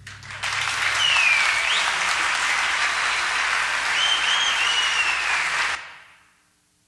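Concert audience applauding, with a couple of whistles that rise and fall. The applause breaks out about half a second in and is cut off and faded out shortly before the end.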